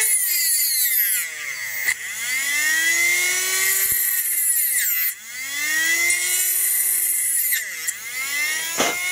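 Homemade brushless CNC spindle, a Turnigy P2627L 4200kv outrunner motor driving a Foredom H43T handpiece, whining at speed while a small rotary bit cuts into a piece of brass. The pitch sags and recovers three or four times as the bit is pressed hard into the metal and eased off.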